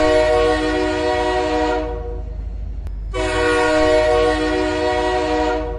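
Homemade goal horn, a deep chord-toned air horn like a train horn, sounding two long blasts. The first ends about two seconds in; the second starts about a second later and holds until just before the end.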